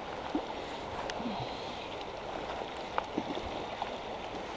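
Steady rush of a shallow, rocky river riffle flowing over stones, with a few faint ticks and small water sounds over it.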